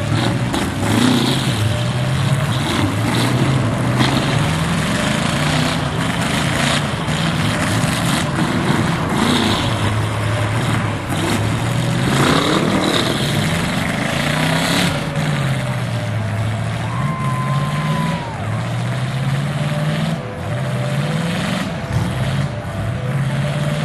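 Demolition derby cars' engines revving, their pitch rising and falling over and over as the cars push against each other.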